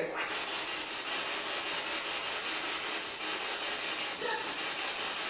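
Spirit box sweeping through radio stations: steady radio static, with a brief voice-like fragment about four seconds in that the investigators read as the word 'Jump'.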